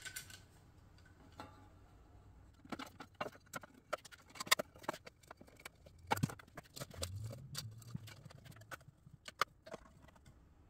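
Irregular clicks and light knocks of parts and tools being handled on a workbench: an intake's sheet-metal heat shield, gaskets, ring and Allen bolts being fitted together, and sockets picked from a socket tray. The clicks start about three seconds in and thin out shortly before the end.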